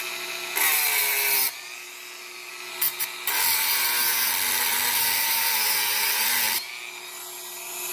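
Dremel rotary tool running with a steady whine, cutting into the pin heads of a motorcycle drive chain so the pins can be punched out. Loud, harsh grinding comes in two spells: a short one about half a second in, and a longer one from about three seconds to six and a half. Brief touches come just before the longer spell, and the tool spins free between them.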